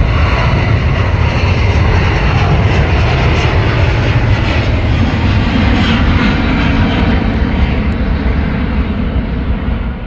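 Airbus A350-900 airliner's Rolls-Royce Trent XWB jet engines at takeoff power as it lifts off and climbs away. The sound is a loud, steady rumble that drops away in the last second.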